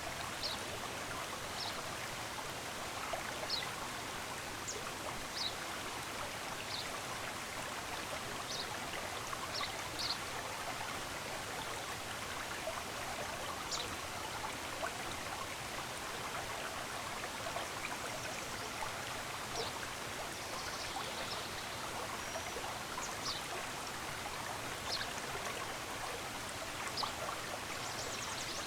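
Stream water running steadily, with short high bird chirps scattered throughout.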